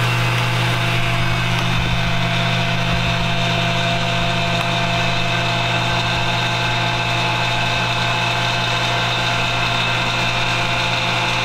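Chamber vacuum sealer's pump running with a steady hum, drawing the air out of the chamber and a bag of herring before the seal.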